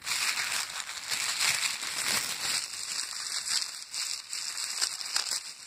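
Crinkling and rustling of clear plastic wrapping and fabric as a parcel is handled and opened, continuous and irregular.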